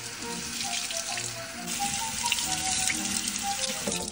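Kitchen faucet running, its stream splashing over a bunch of grapes and into a sink as they are rinsed: a steady hiss of water.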